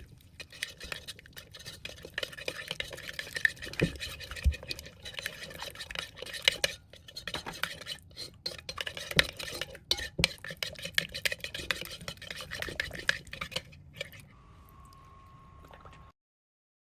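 A spoon stirring and scraping in a cooking vessel, with frequent clinks and scrapes, for about fourteen seconds. Then it stops, leaving a faint steady tone, and the sound cuts out near the end.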